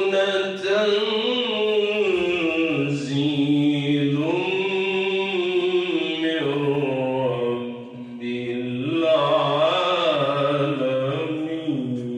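A man's melodic Quran recitation (tajweed) into a microphone, heard through a loudspeaker system, in long held phrases with ornamented turns of pitch. There is a short breath pause about eight seconds in.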